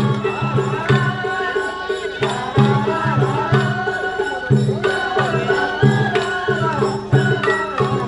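Japanese festival hayashi music from a float: taiko drums beat a steady, fast rhythm under a wavering high melody.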